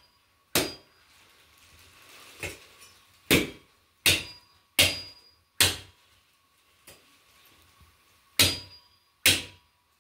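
A long butcher's knife chopping through a rack of ribs: about nine sharp whacks, mostly in quick runs of roughly one a second, a couple of them lighter.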